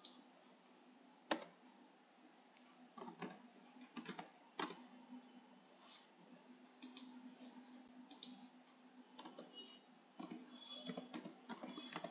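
Faint computer keyboard typing: scattered keystrokes in short bursts, coming quicker and denser near the end.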